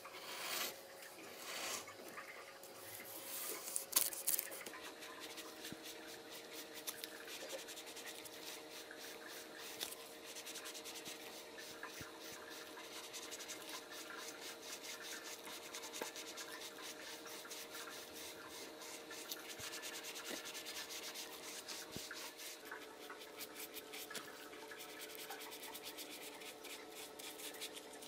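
Paintbrush laying furniture paint onto the edge of a wooden door with quick, repeated strokes: a steady rubbing of bristles on the wood. There are a few louder knocks in the first few seconds and a faint steady hum underneath.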